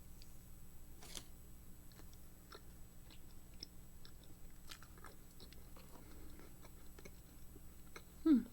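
A person eating a cookie: quiet chewing and biting with scattered small mouth clicks, a sharper click about a second in. Near the end comes a short, louder voiced sound falling in pitch.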